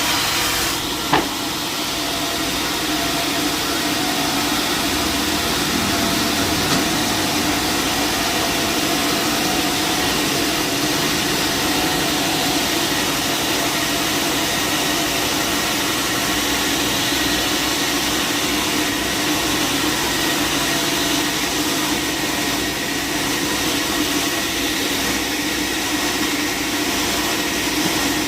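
Band sawmill running steadily, a continuous machine drone with a steady hiss, with one sharp knock about a second in.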